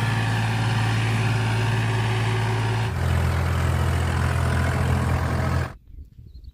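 Farmtrac Champion XP41 tractor's three-cylinder diesel engine running under load as the tractor pulls through soft sand with its rear wheels spinning. The engine note steps lower about three seconds in, and the sound cuts off suddenly near the end.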